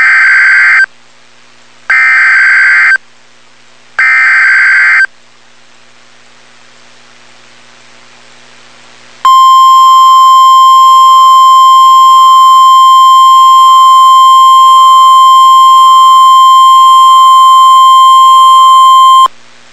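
Emergency Alert System SAME header: three short, harsh digital data bursts about a second apart. After a few seconds' gap comes the NOAA Weather Radio warning alarm tone, a single steady 1050 Hz tone held for about ten seconds before cutting off, signalling that a tornado warning follows.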